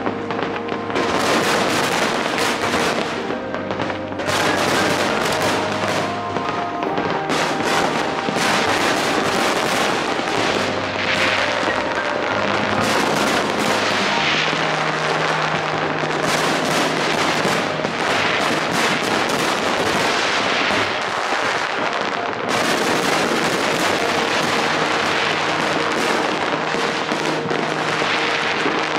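A dense fireworks display, with many shells bursting and crackling without a pause. Music with long held notes plays underneath.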